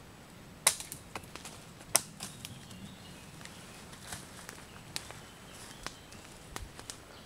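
Dry leaf litter and twigs crackling and snapping underfoot: two sharp snaps in the first two seconds, the loudest, then scattered fainter clicks and crackles at irregular intervals.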